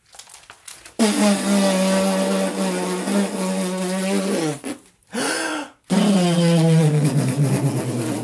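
A man blowing a long buzzing raspberry through his lips to imitate a balloon losing its air, in two long blows with a short break between them; the second one slowly drops in pitch.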